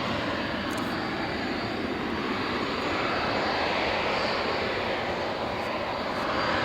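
Aircraft engine running, a steady broad rush that swells slightly in the middle.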